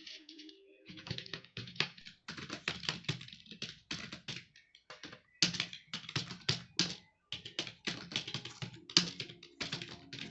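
Fast typing on a computer keyboard: a rapid, continuous run of key clicks starting about a second in, broken by a couple of brief pauses.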